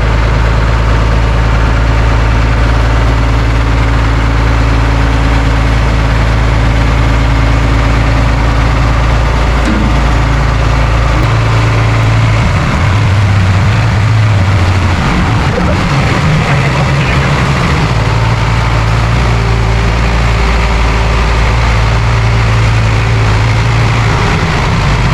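A heavy machine's engine running steadily at idle. Its note shifts and changes between about 11 and 15 seconds in, and again later.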